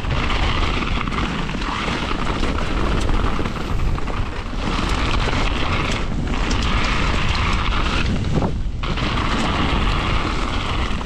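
Mountain bike descending a wet dirt trail, heard from an on-bike or on-rider camera: steady wind rush on the microphone mixed with the tyres rolling over dirt and fallen leaves and the bike rattling.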